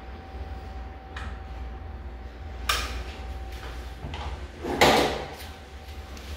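A door lever turned and the latch clicking as a door is pushed open, with a louder knock a couple of seconds later, over a steady low hum.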